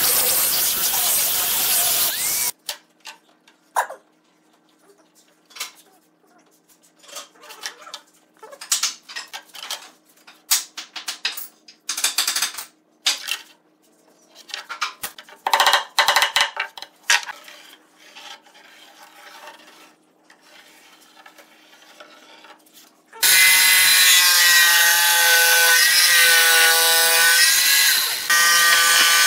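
An angle grinder with a sanding disc runs against pine boards and cuts off about two and a half seconds in. Quiet scattered scratches and taps follow as a pencil marks along a steel rule. About 23 seconds in, an electric jigsaw starts and runs loudly, cutting through the pine.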